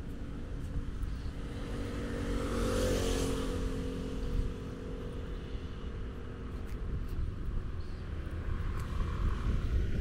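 Street traffic: a road vehicle passes about three seconds in, its engine hum and tyre noise swelling and then fading, over a constant low rumble.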